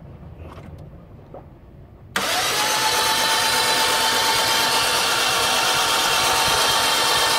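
Starter motor cranking a Toyota 1ZZ-FE engine with its spark plugs removed, blowing leftover decarbonising solvent out of the cylinders through the rag-covered plug holes. It starts suddenly about two seconds in and spins on evenly with a steady whine.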